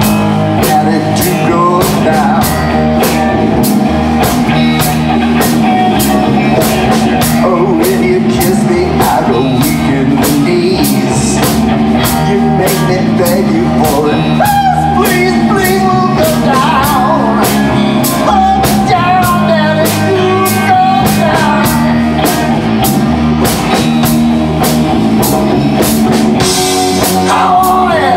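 A glam rock band playing live: electric bass and a drum kit keeping a steady fast beat under electric guitar, with a lead singer over the top.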